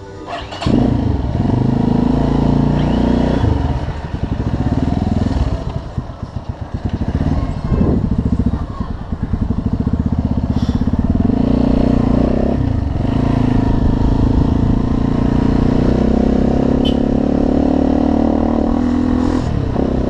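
A Viar Cross X 200 ES motorcycle's single-cylinder engine pulls away and accelerates. It eases off and picks up again twice in the first seven seconds, then runs steadily under throttle at road speed.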